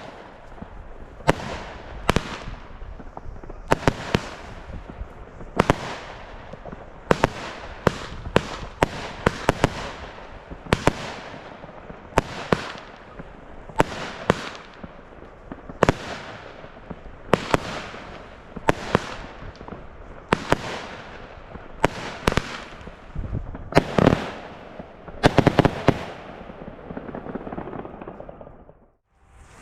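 Consumer firework battery (cake) firing a long series of shots: sharp bangs about one to two a second, each trailing off in a hiss, ending just before the end.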